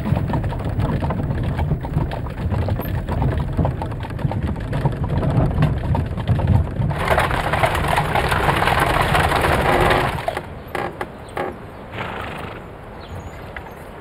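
Horse-drawn carriage rolling over cobblestones: wheels rattling and hooves clopping, loudest just before it stops about ten seconds in. A few light knocks follow.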